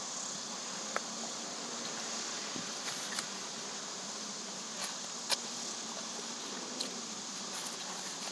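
Steady low hiss of background room noise, with a few faint short clicks.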